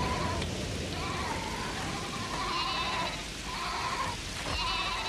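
Sheep bleating, several overlapping wavering calls over a steady background hiss.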